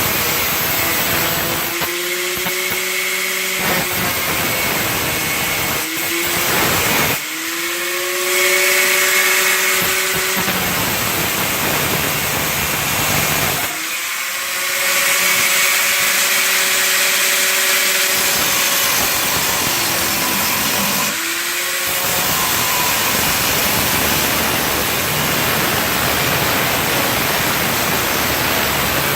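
Handheld power grinder working on metal, alternating between a harsh grinding noise and the motor's whine, which rises in pitch four times as the load comes off.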